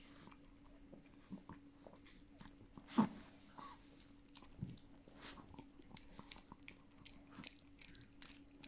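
Two chihuahuas eating beans from a bowl: wet chewing and smacking with many small clicks. One sharp knock about three seconds in stands out as the loudest sound.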